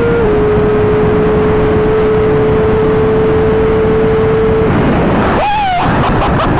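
A motor vehicle engine running at a steady pitch under a loud rushing noise. The pitch dips slightly just after the start, the drone stops about two-thirds of the way through, and a few short rising-and-falling pitched calls follow.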